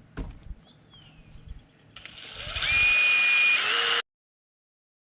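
A small power tool runs for about two seconds, cleaning corrosion off a wire terminal. Its high whine rises as it spins up and then holds steady, over a loud gritty noise, and it stops abruptly. A light knock sounds just before it.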